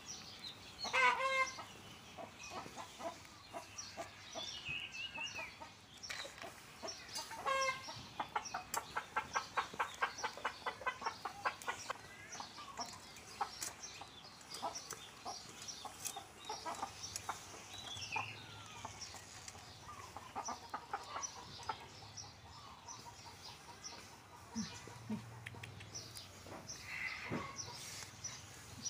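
Chickens clucking and calling, with a fast, even run of clucks in the middle.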